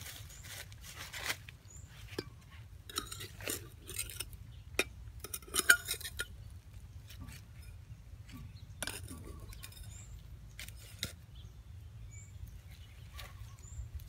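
Irregular clinks and scrapes of a ceramic bowl against a small metal blade and the soil, with rustling of dry leaves as the bowl is propped and the ground worked. The sharpest clinks come a little before the middle.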